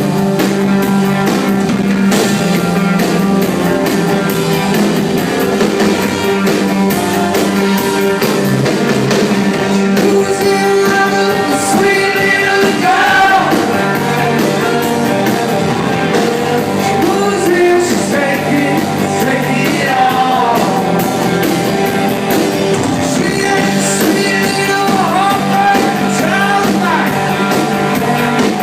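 A rock band playing, with guitars holding steady chords and a lead singer coming in about twelve seconds in.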